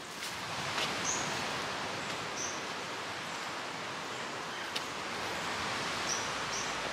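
Steady rushing outdoor ambience with a few short high bird chirps scattered through it, about a second in, near two and a half seconds, and twice near the end.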